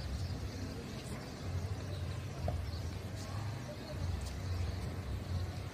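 Low, uneven outdoor rumble that swells and fades every second or so, with a few faint clicks.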